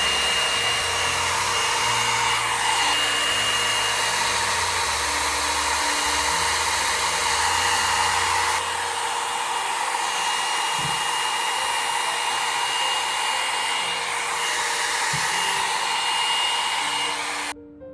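JINRI 1000-watt hot air styling brush running on its high setting while being passed through hair: a steady blower rush with a thin high whine. It cuts off abruptly near the end.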